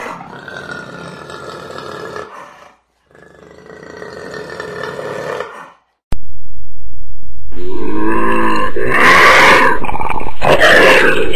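Big cat roaring and growling: two drawn-out growling roars of a few seconds each, then, about six seconds in, a much louder stretch of repeated roars.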